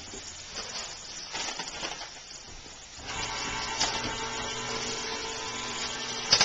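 Electric can opener running on a tomato can, a steady motor hum that comes up about three seconds in; a sharp click near the end.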